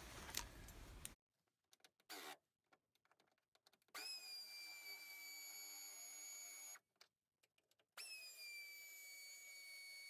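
Faint whine of a cordless power driver running twice, about three seconds each, as 10 mm bolts are backed out of the plastic radiator cover; each run dips slightly in pitch at the start, then holds steady.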